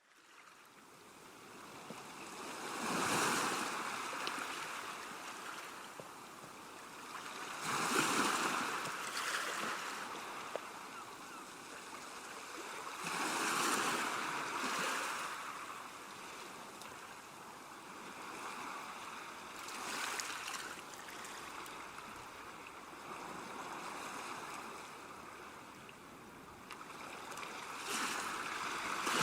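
Waves breaking and washing up a beach, surges coming about every five seconds with a steady hiss of surf between them. The sound fades in from silence at the start.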